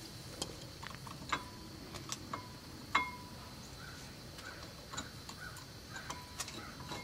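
Scattered light metallic clicks and clinks from tools and brake parts being handled at a disc brake caliper, a few ringing briefly after the hit.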